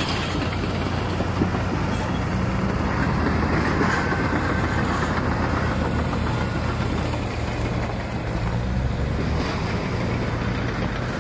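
Heavy diesel engines of an excavator and a Kamaz dump truck running steadily together. The low engine note grows heavier for a couple of seconds about seven seconds in.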